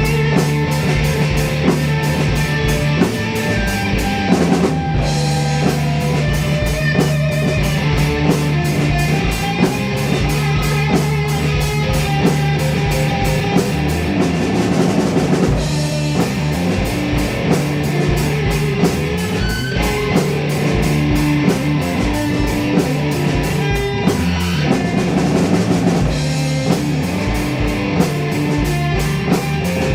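Band jamming on electric guitar, bass and drum kit: sustained distorted guitar over a steady drum beat and held bass notes, in a psychedelic rock style.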